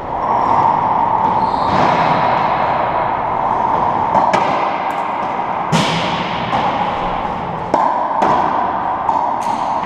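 Racquetball rally: a racquet striking the ball and the ball smacking off the walls and floor of the enclosed court, a string of sharp, echoing impacts at irregular intervals, over a steady background noise.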